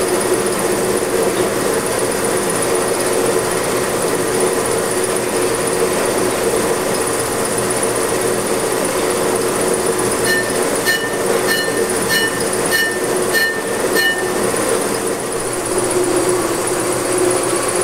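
Accu-Turn 8944 brake lathe running with a brake disc rotor spinning on its arbor, a steady machine hum. About ten seconds in, the cutting bit scrapes the rotor face in short ticks about twice a second for some four seconds, one touch per turn, because the warped rotor only meets the bit at its high spot.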